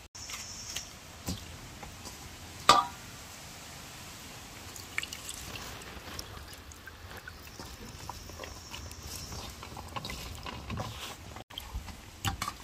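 Liquid pouring and dripping as chicken back is washed with sour orange juice, with small handling clicks and one sharp knock about three seconds in.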